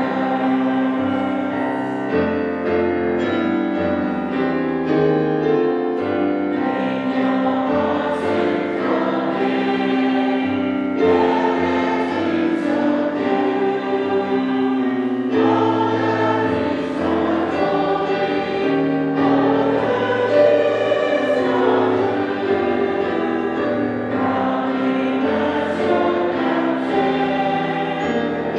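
Choir singing a hymn in sustained chords.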